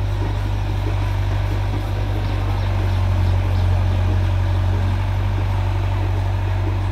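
Diesel engines of a Farmtrac tractor and a Caterpillar excavator running together as a steady low hum, the tractor idling while the excavator works its boom and bucket.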